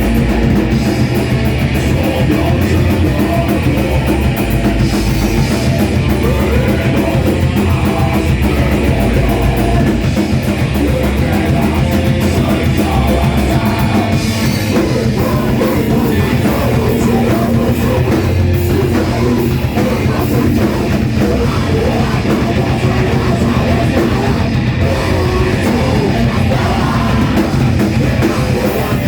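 A rock band playing live, with a drum kit, loud and continuous.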